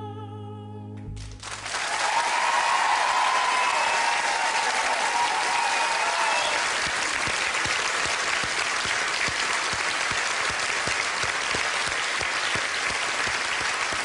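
A held final sung note with harp and strings ends about a second in, and a studio audience breaks straight into loud, steady applause, with some cheering in the first few seconds.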